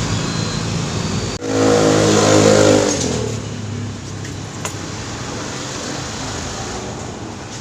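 A vehicle engine running, revving up loudly for a second or two about one and a half seconds in, then easing back to a steady hum.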